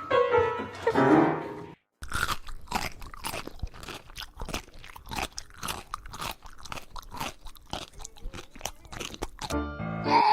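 Chewing on something hard and crunchy: a long run of quick, irregular crisp crunches. It follows a short stretch of music that cuts off about two seconds in.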